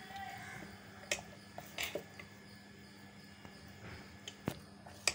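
Steel ladle stirring thick pearl millet dosa batter in a stainless steel bowl: quiet squelching with a few scattered light taps and clicks of the ladle against the bowl.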